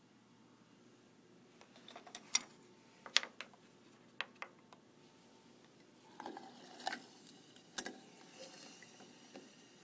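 A scatter of faint, sharp clicks and taps, then some rustling about two-thirds of the way through, over quiet room hiss.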